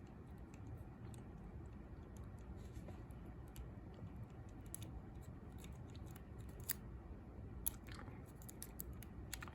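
Lock picks working inside a lever lock: faint scratching and a few sparse light clicks, over a low steady hum.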